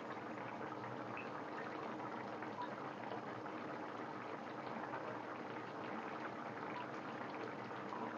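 Fish and broccoli curry simmering in a frying pan, its gravy bubbling steadily with small pops.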